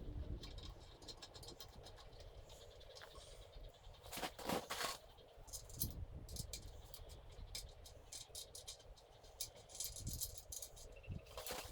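Faint scattered clicks, rattles and scrapes of hand work with tools and hardware, with a louder cluster of knocks about four to five seconds in.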